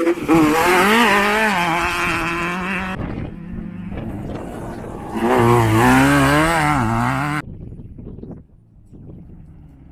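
Off-road race vehicle engine revving hard as it comes through a dirt turn, the pitch rising and falling with the throttle over a hiss of tyres and loose dirt. It surges twice and stops abruptly about seven seconds in.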